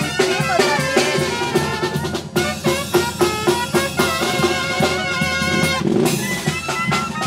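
Tamborazo band playing: trumpets and other brass hold a melody over the steady beat of the tambora bass drum.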